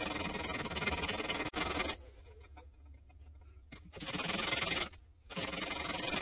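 Hand sanding the radiused edge of a wooden air rifle stock with 120-grit sandpaper wrapped around a stainless steel bar: a steady scratchy rubbing that stops about two seconds in, then starts again in two short spells near the end.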